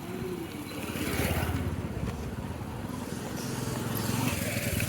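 A motor vehicle engine running close by, getting louder about a second in and again near the end, over general street noise.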